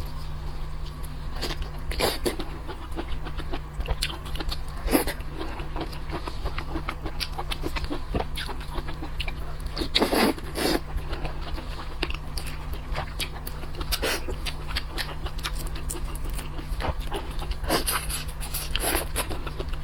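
Close-miked eating sounds: a person biting and chewing seafood, with many irregular crunchy clicks and wet mouth noises, the loudest about halfway through, over a steady low hum.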